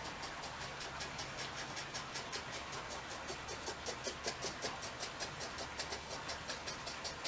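Ultrasonic distance sensors ticking evenly and quickly, about five ticks a second, the ticks growing more distinct in the second half, over a steady hiss and a low hum.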